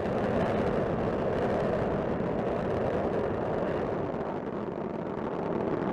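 Space Shuttle Discovery's solid rocket boosters and main engines firing during ascent: a steady, crackling rocket rumble that eases slightly past the middle and builds again near the end.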